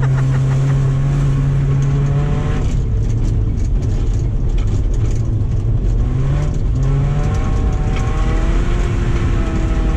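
2007 Subaru Impreza's flat-four engine under racing load on an ice track. It holds steady at high revs for the first couple of seconds, drops, then climbs again about six seconds in and settles into a steady lower note, over a steady rush of noise.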